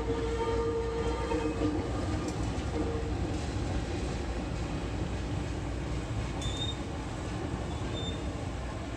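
Diesel-electric locomotive CC 203 98 15 running past with a steady low rumble. A held tone with an overtone fades out about two seconds in, and two brief high squeaks come near the end.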